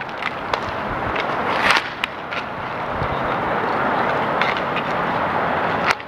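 Inline skate wheels rolling and scraping on a roller hockey rink floor during play, with several sharp clacks of sticks and puck at irregular moments, a quick cluster of them just under two seconds in.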